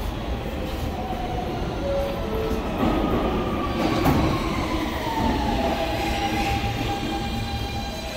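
R160 subway train pulling out of the station, its electric traction motors whining over wheel-on-rail noise. The motor tone slides lower a few seconds in.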